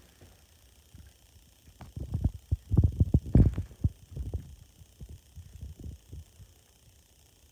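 A run of soft, low thumps and knocks as hands work the needles of a circular sock machine with a latch tool. The knocks bunch up and grow loudest about three seconds in, then thin out to lighter taps.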